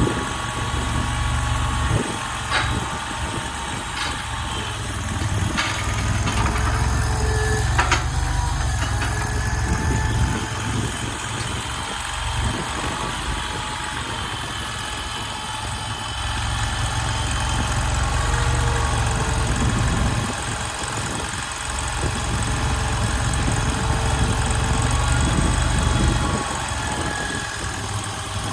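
Mini stand-on skid steer loader's 739cc engine running as the machine works, its sound swelling and easing with load, with a steady whine above it. A few sharp metal clanks in the first eight seconds.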